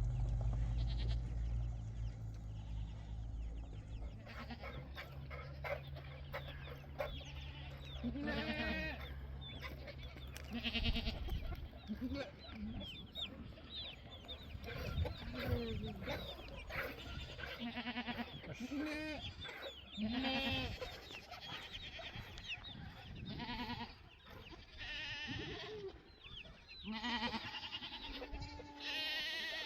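A herd of sheep bleating, many short calls one after another and overlapping. A low steady hum sits under the first ten seconds or so.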